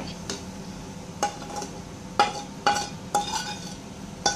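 A spoon and plate clinking against the rim of a metal cooking pot as rice flour is scraped off the plate into boiling water: several separate sharp clinks, each with a brief ring.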